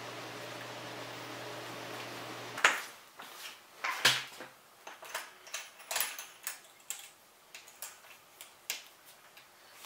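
Sharp metallic clicks and clanks of camlock quick-connect fittings and hoses being handled and coupled onto a small gas water pump's ports, which is not running. The clicks start about two and a half seconds in, where a steady low hum cuts off abruptly. The loudest knocks come then and again about a second later, with lighter clicks after.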